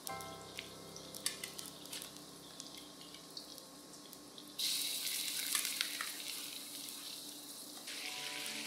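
Chicken wings sizzling as they are dropped piece by piece into hot sesame oil and ginger in a carbon-steel wok, with small clicks of pieces and spatula. The sizzle gets louder about halfway through as more wings go in.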